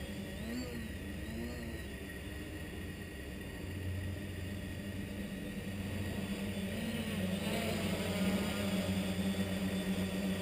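Quadcopter's four NTM 28-26 1200 kv brushless motors and propellers humming steadily in flight, the pitch wavering slightly as the throttle changes. It grows louder in the second half as the quad flies closer.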